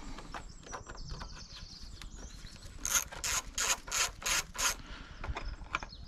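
Small socket ratchet clicking in a run of about seven or eight short strokes, roughly four a second, as it loosens an 8 mm airbox bolt on the outboard.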